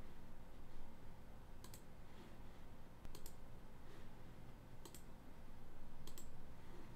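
Computer mouse button clicking: four sharp clicks a second or more apart, over a faint low hum.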